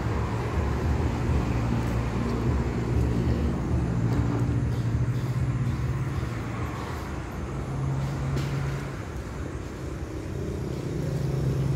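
Steady low engine hum with road traffic noise.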